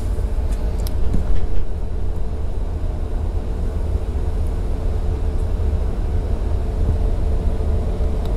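Steady low rumble and hum of running machinery, with a few light handling knocks about a second in.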